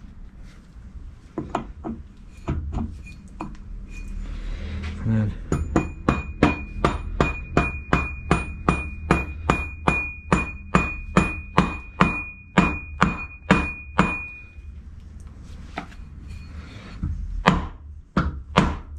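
Hammer tapping a cast stepped drive pulley down its keyed spindle shaft on a Bridgeport milling machine head, a tight fit. A few scattered knocks come first, then a steady run of about two blows a second for some nine seconds, with a ringing metallic note, and a few more blows near the end.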